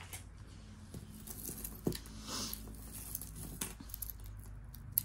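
Costume jewelry being handled: a few light clicks and rustles of metal chains and beads, with a sharper click near the end.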